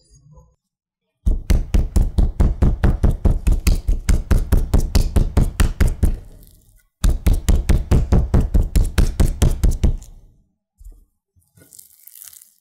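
Metal meat tenderizer mallet pounding a pork loin cutlet on a wooden cutting board: two fast runs of even knocks, several a second, with a short pause between.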